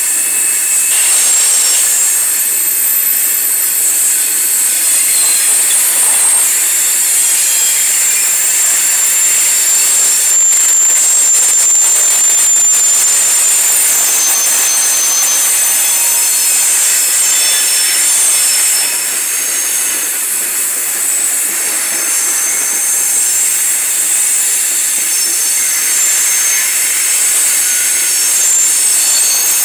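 Loaded coal hopper cars rolling past, their steel wheels screeching against the rails in several piercing high tones over a steady rolling noise. The screech is loud enough to hurt the ears.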